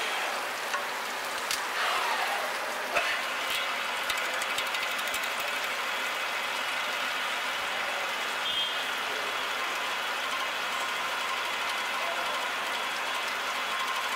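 Automatic drilling and chamfering machine running under cutting coolant: a steady mechanical whir, with a few sharp clicks and knocks in the first three seconds and a short falling whine about two seconds in.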